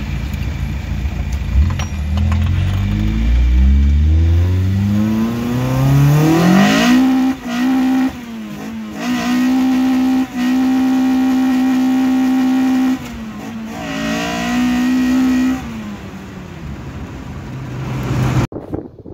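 Toyota 20-valve silvertop four-cylinder breathing through individual throttle bodies and intake trumpets, revving hard: the pitch climbs steadily over about seven seconds, holds at high revs for several seconds, briefly dips and rises again, then drops back. It cuts off abruptly near the end.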